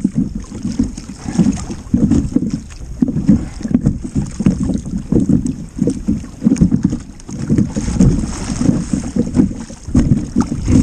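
Water slapping against a small kayak-like hull in quick, irregular low knocks, with wind buffeting the microphone.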